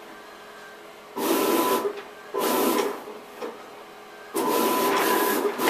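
Vinyl sign plotter running a pen plot of a flame pattern: its motors whir in three bursts with short pauses between, the first about a second in and the last starting about four seconds in and running on.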